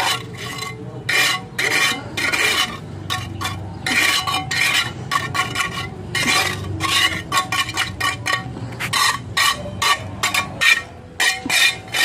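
Trowel scraping and smoothing wet cement in quick repeated strokes.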